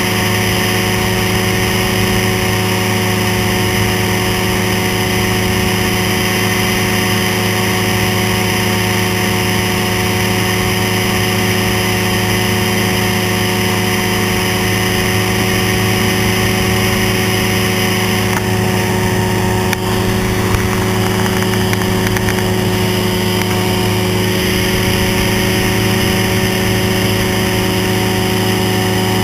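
Engine of an amphibious ultralight trike running steadily in flight, its even engine tone mixed with a rushing hiss of wind.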